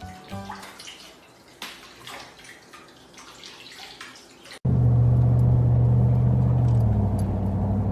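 Faint sloshing and dripping of bathtub water as a puppy wades in it, then, after an abrupt cut, a motorboat's engine running loud and steady, its pitch dropping slightly near the end.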